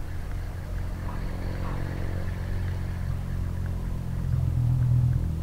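An engine running steadily with a low hum, growing louder about four seconds in.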